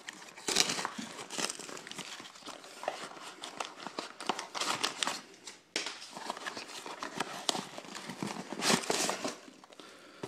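Foam packing peanuts and cardboard rustling as hands dig through the loose fill and lift out a small inner cardboard box: irregular crinkling with many small clicks.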